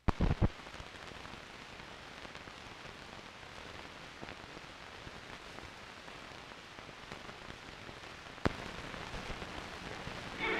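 Hiss and fine crackle of an old film's optical soundtrack running over the blank countdown leader, with a few loud pops right at the start and one sharp click about eight and a half seconds in.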